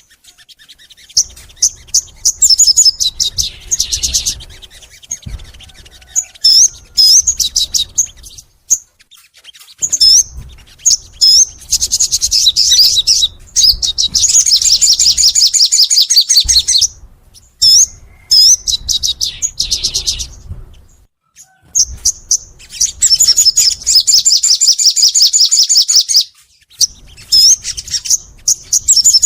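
Sogon songbird singing: sharp high chirps and several long, fast trills of rapidly repeated notes, broken by short pauses.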